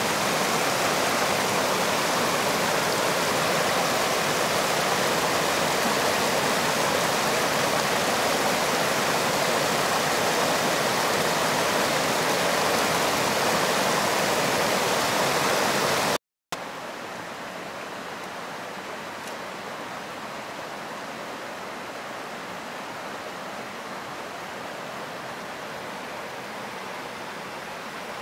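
Rushing water of a small river spilling over a low rock ledge, a steady rush close by. It cuts out for a moment about sixteen seconds in, then the same rush goes on much quieter and more distant.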